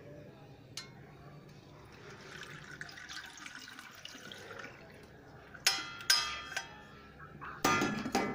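Water and wet tea leaves pouring from a steel saucepan through a mesh tea strainer into a stainless steel sink, then three sharp, briefly ringing metal clanks of the steel pan, two close together about two thirds in and one near the end.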